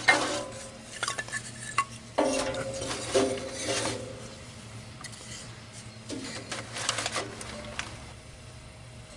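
Sticks of scrap lumber clattering and knocking against the steel firebox of a cylinder wood stove as they are stacked in over crumpled newspaper; the stove body rings briefly after several knocks. The knocking thins out near the end.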